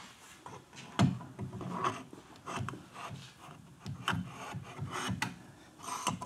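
Irregular clicks, light knocks and short scraping rubs of metal motorcycle fork parts being handled, as a fork tube is worked up into its triple clamp.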